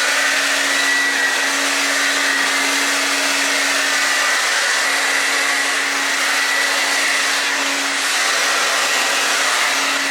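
Handheld blow dryer running steadily, a constant rush of air over a steady motor hum, drying the glue under a freshly laid lace-front wig.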